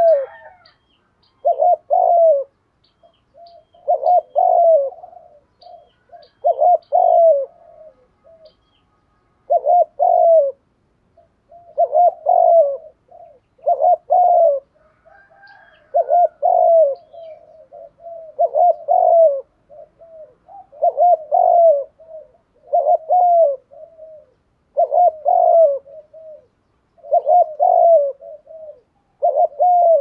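Spotted dove cooing: a caged decoy bird repeats its short, several-note coo phrase about every two to three seconds, some fourteen times.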